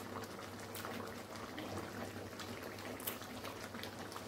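Thick chicken masala gravy simmering in a kadai on a gas burner, bubbling steadily with scattered small pops.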